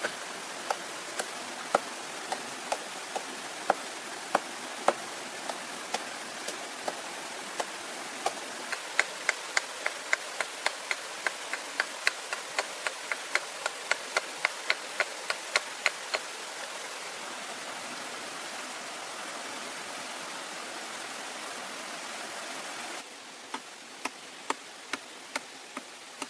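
A series of sharp knocks, at first about two a second, then a quicker run of about three a second that stops a little past halfway; a few more come near the end. Under them a steady hiss of running water, which drops abruptly in level near the end.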